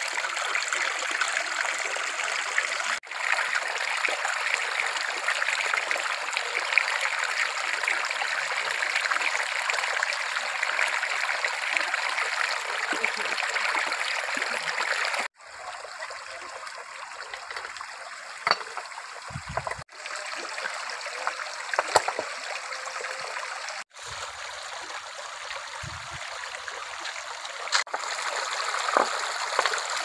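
Shallow stream water flowing and trickling over rocks and through a woven basket set in the current. It is steady and fuller for the first half, then softer, with a few short clicks or small splashes and brief breaks where clips are cut together.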